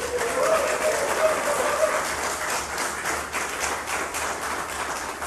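Audience applauding: a dense spread of clapping, with a few voices raised over it in the first couple of seconds.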